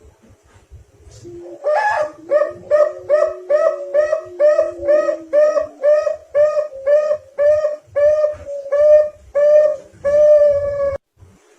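Zebra dove (perkutut) cooing: a long run of evenly spaced, pitched notes, about two and a half a second. It starts about two seconds in and stops shortly before the end.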